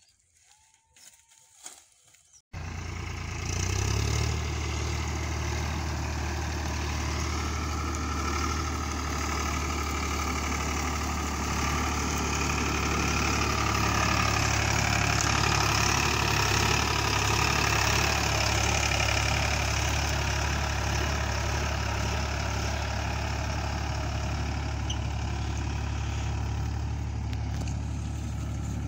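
Eicher 5660 tractor's diesel engine running steadily under load, hauling a fully loaded sugarcane trolley. The sound cuts in abruptly about two and a half seconds in, after near silence.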